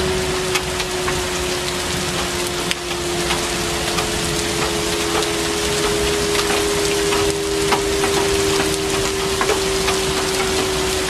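Town's 6:00 evening whistle sounding one steady held tone, over steady rain falling and dripping.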